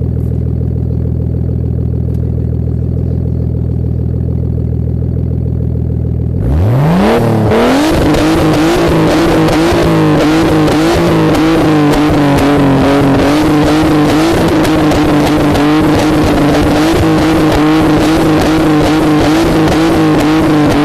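Nissan Skyline R33 GTS-T's turbocharged 2.5-litre straight-six, through a Japspeed aftermarket exhaust, idling, then revved up sharply about six seconds in and held at high revs for the rest, the pitch wavering slightly.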